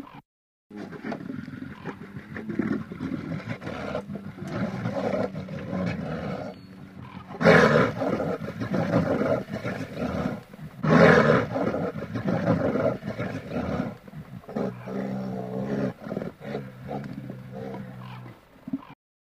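Brown bear growling and roaring, with two loudest roars about seven and eleven seconds in and a steadier, lower growl near the end.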